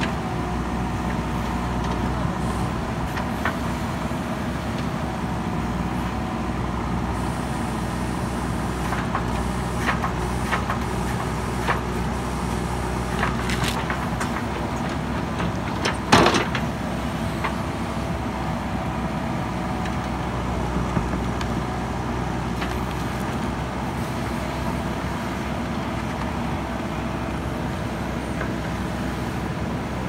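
JCB 3DX backhoe loader's diesel engine running steadily as the backhoe digs, with a few short knocks of the bucket working the ground, the loudest one about halfway through.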